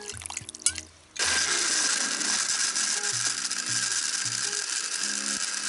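Water pouring into a blender jug over ice, then about a second in an electric blender switches on and runs steadily at full speed, blending bananas, ice cubes and liquid into a smoothie.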